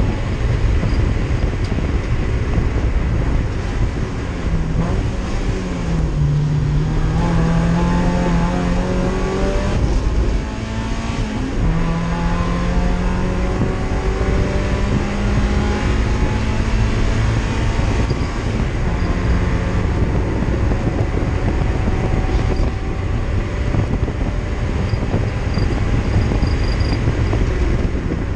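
Race car engine running hard under load, heard from inside the stripped cockpit along with rumble and wind noise. Its pitch climbs as the car accelerates, drops sharply at a gear change about eleven seconds in, then carries on.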